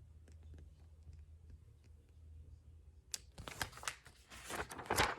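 Paper rustling as the pages of a picture book are turned, starting about three seconds in, over a faint low room hum.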